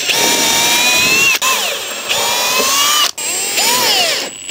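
Cordless drill-driver whirring in three bursts into pine wood: two runs of about a second each, the pitch creeping up and then cutting off, and then a short rev that rises and falls.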